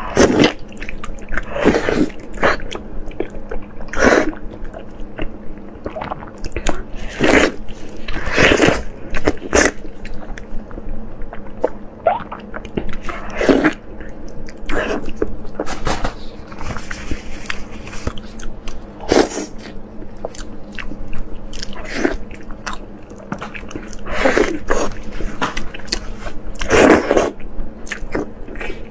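Close-miked eating sounds: biting into and chewing fatty marinated pork in chili sauce, with irregular wet bites and chewing throughout.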